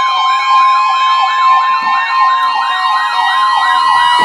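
Emergency alert tones: an electronic siren yelping up and down about three times a second over a steady, high-pitched alert tone.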